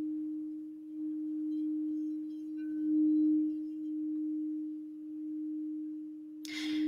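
Crystal singing bowl tuned for the sacral chakra, ringing with one steady low tone that swells and fades every second or two.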